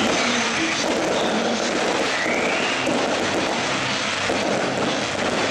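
Fireworks going off: a steady crackling rumble with a short rising whistle about two seconds in.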